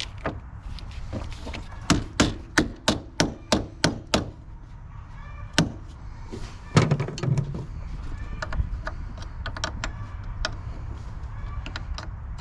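A hammer tapping a battery terminal clamp down onto its post: about eight quick, sharp strikes at roughly three a second, then a single knock and a heavier thump, followed by light metallic clicking.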